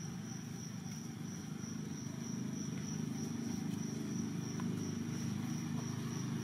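A steady, high-pitched insect drone, one thin tone that pulses slightly, over a louder low steady rumble, with a few faint ticks.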